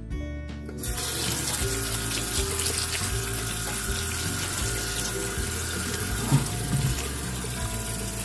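Tap water running onto soaked navy beans in a stainless steel colander, starting about a second in as a steady rush.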